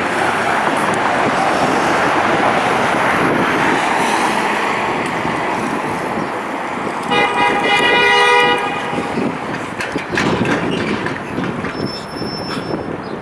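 City street traffic running steadily, with a vehicle horn honking once for about a second a little past the middle.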